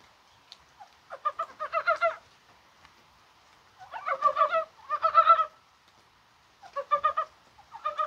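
Korean mountain brown frogs (산개구리) giving breeding calls: about five short bursts of rapid clucking croaks, some overlapping, about a second in, around four and five seconds in, and twice near the end.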